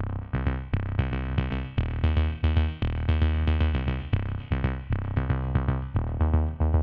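Background music: an electronic track with a steady beat of repeated synthesizer notes over a strong bass.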